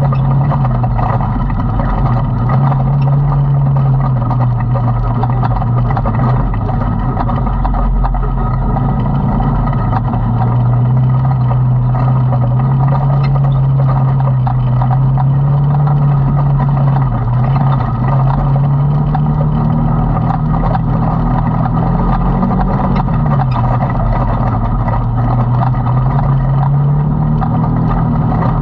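Side-by-side UTV engine running steadily under throttle, heard from inside the open cab. Its note dips and climbs back a couple of times in the second half.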